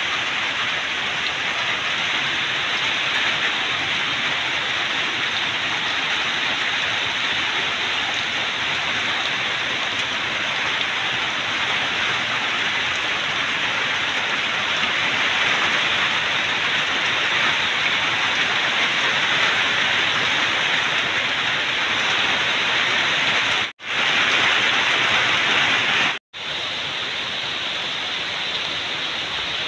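Heavy rain falling steadily, with a brief dropout in the sound twice near the end.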